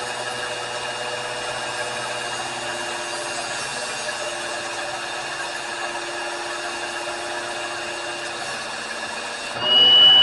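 A small electric motor running steadily with a high whine. About nine and a half seconds in it turns sharply louder and the whine steps up slightly in pitch.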